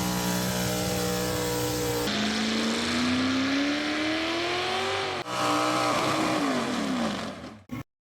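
An engine running, then revving up in rising pitch and dropping back down, in abrupt edited cuts that end suddenly.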